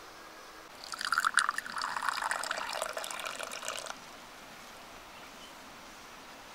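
Water being poured, splashing and trickling for about three seconds, starting about a second in and cutting off sharply.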